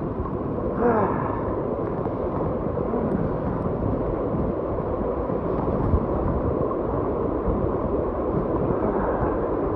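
Steady rush of water echoing in a narrow rock gorge, with a brief sliding call about a second in.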